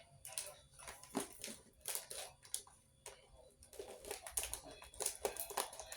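Plastic snack packets crinkling and crackling as they are handled, in a string of irregular sharp rustles and clicks.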